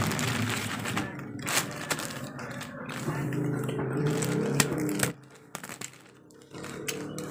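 Plastic courier mailer bag crinkling and rustling as it is slit open with a utility knife and handled, with many short sharp clicks. It goes quieter for about a second and a half roughly five seconds in.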